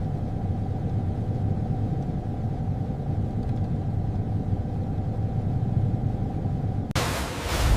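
Heavy machinery running: a steady low rumble with a constant hum over it. About seven seconds in, it gives way to a loud rushing noise.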